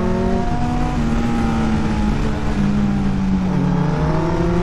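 Kawasaki ZX-10R's inline-four engine running under load: its note drops about half a second in, holds, then rises steadily near the end as the bike accelerates hard, with wind rush on the microphone.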